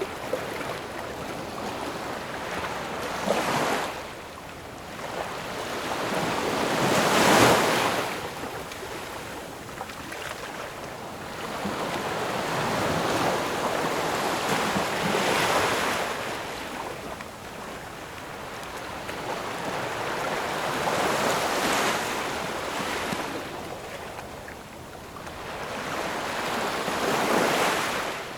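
Ocean waves breaking and washing up on the shore, the surf swelling and fading in slow surges several seconds apart, the strongest wave about a third of the way in.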